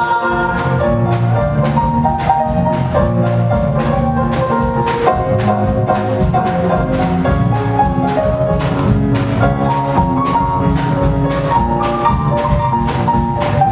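Instrumental music from a musical's accompanying band, with a drum kit keeping a steady beat under a melody and no singing.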